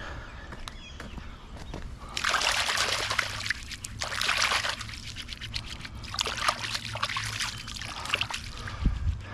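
Water splashing and trickling in irregular spells, with a low hum beneath, and a single low thud near the end.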